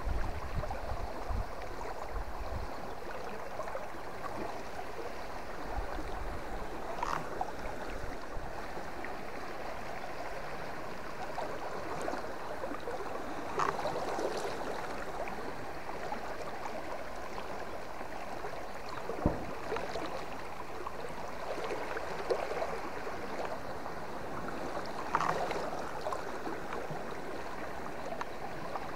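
River water flowing and gurgling steadily, with a few brief knocks or splashes scattered through it.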